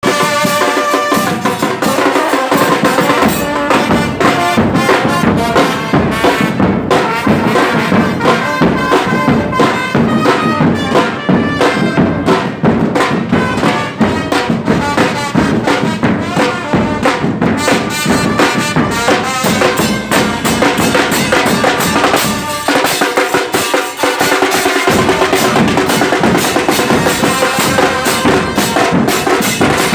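Loud music with drums and percussion under a pitched melody, with a steady beat.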